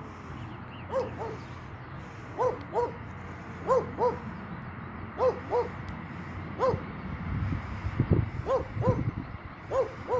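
An animal calling: short notes that rise and fall in pitch, mostly in pairs, repeating every second or so, about seven times in all, over a steady background hiss. A low rumble swells briefly between the calls near the end.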